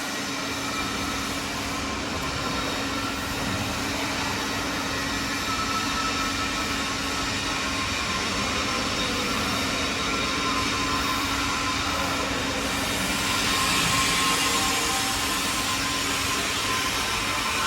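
Profile bending machine running steadily: an even mechanical noise with a constant low hum, growing a little louder and hissier about thirteen seconds in.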